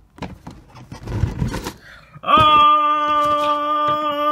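Cardboard box being handled and its lid lifted, rustling. A little over two seconds in, a man's voice comes in holding one long sung 'aaah' at a steady pitch, a reveal fanfare as the contents come into view.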